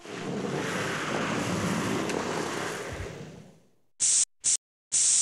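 A broad rushing noise swells and then fades out over about three and a half seconds. Then come three short, loud bursts of spray-can hiss, the last one the longest.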